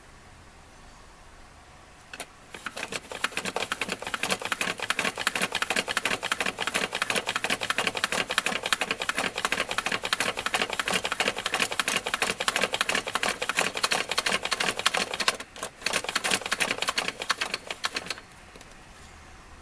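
Hand crank of a Nintendo Mini Game Series horse-racing toy being turned fast, driving the plastic horses down the track with a rapid, even clatter of plastic clicks. It starts about two seconds in, breaks off for a moment about three-quarters of the way through, then runs on briefly and stops shortly before the end.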